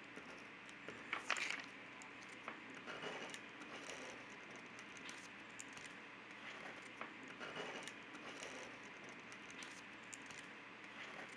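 Pencil scratching on paper as lines are sketched, faint, with small ticks and a louder scrape about a second in.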